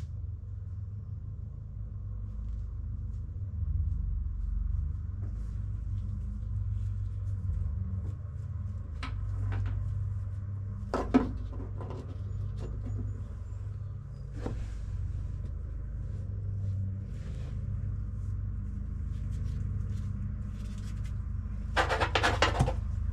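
Tools clicking and knocking against car parts over a steady low rumble, with one sharp knock about halfway through and a quick run of clicks near the end.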